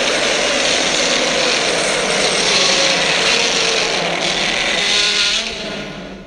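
A long, harsh creature roar for the Beast, mixed from lion, tiger, King Kong and Godzilla roars. It holds loud and then fades away near the end.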